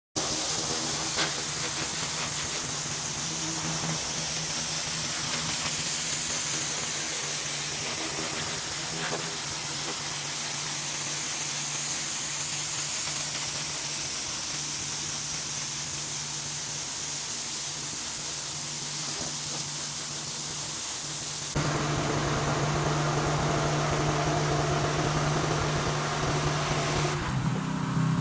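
Gas pressure washer running steadily under the hiss of its high-pressure water spray. About 21 seconds in the sound changes abruptly, the engine hum becoming louder and fuller.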